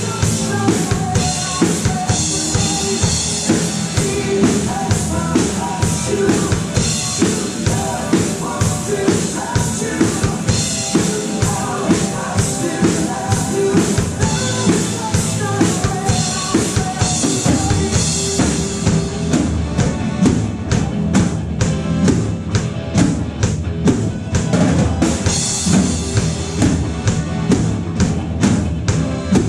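Gretsch drum kit played along to a recorded rock song: a steady kick and snare beat over the song, with stretches of cymbal wash.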